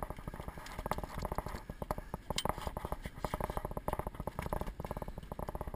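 Rapid, irregular clattering and tapping: a freshly caught lingcod thrashing in a landing net as the net and its metal frame knock against an aluminum boat hull.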